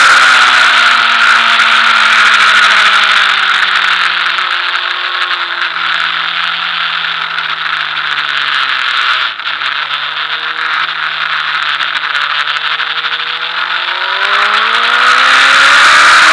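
Sport motorcycle engine under heavy wind rush: the engine note falls in steps as the bike slows and downshifts into a corner, stays low through the bend, and rises again as it accelerates out near the end.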